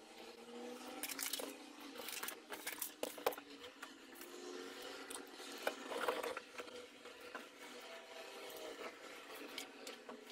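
Handling noise from fitting a ring light onto its tripod mount: scattered clicks, knocks and rustling of plastic parts, with sharper knocks about 3 and 6 seconds in.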